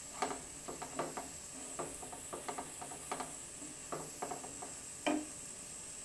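Wooden spoon stirring and scraping thick mung dal paste in a nonstick frying pan, with irregular light taps and knocks of the spoon against the pan, the loudest about five seconds in. A faint sizzle runs underneath as the dal fries in oil, its water cooked off.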